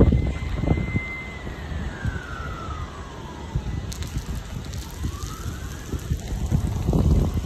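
Fire truck siren on a slow wail: a held high note that falls over a couple of seconds and then starts rising again. Underneath is a low rumble of rain and wind on the microphone, with heavier buffeting near the end.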